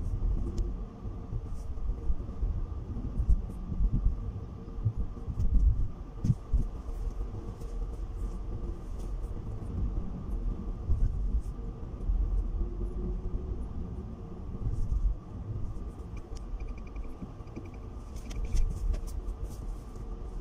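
A car being driven, heard from inside the cabin: a low, uneven road and engine rumble that swells and fades as it goes.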